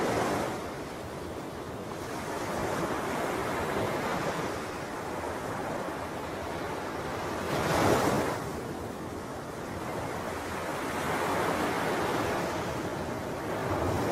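Wind blowing across the microphone: a rushing noise that swells and eases in gusts, with the strongest gust about eight seconds in. No bird calls stand out.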